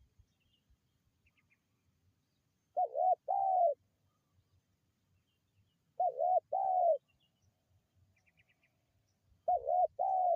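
Spotted dove (tekukur) cooing: three phrases about three seconds apart, each two quick notes and then a longer one. Faint high chirps from small birds come in between.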